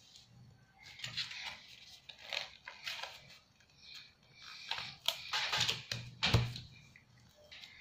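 Paper and a sticker sheet rustling and crinkling as a small child peels stickers off and presses them onto paper on a table, in irregular scrapes and crackles with a soft thump about six seconds in.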